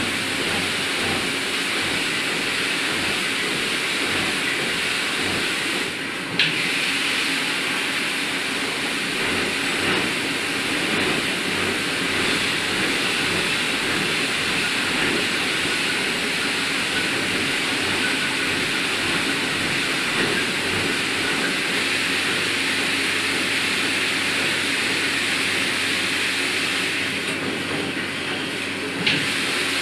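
A CNC machining centre running with flood coolant: a steady hiss of coolant spraying over the workpiece, with a faint hum from the machine beneath. The hiss shifts with a brief click about six seconds in and again near the end.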